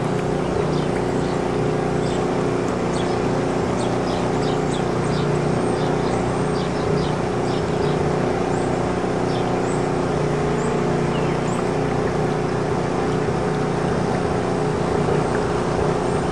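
An engine running steadily at one speed, a constant drone that does not change in pitch, with faint short high chirps scattered over it.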